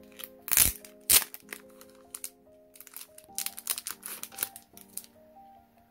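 Packaging being handled and unwrapped: crinkling and crackling, with two loud sharp snaps about half a second and a second in, and a run of rapid crackling from about three to five seconds in, over steady background music.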